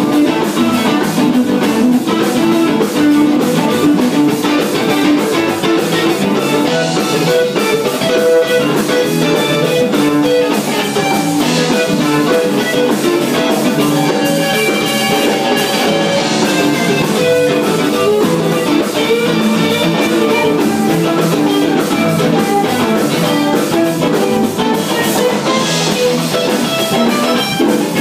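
A band jamming: guitar playing over a drum kit.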